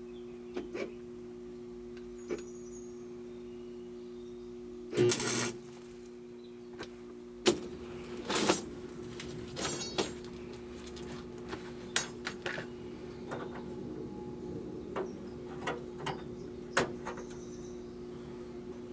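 Scattered clicks and knocks, the loudest a short burst about five seconds in and a sharp knock about two seconds later, over a steady low hum.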